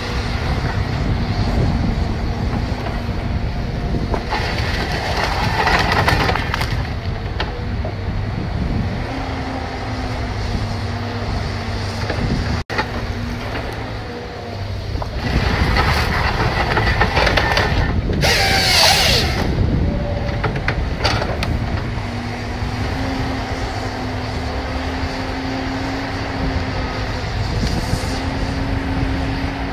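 Tigercat 635D skidder's diesel engine running as the skidder works its grapple on a bunch of trees. The engine pitch steps up twice as it revs under load, and there are louder, noisier surges about five seconds in and again from about fifteen to twenty seconds in.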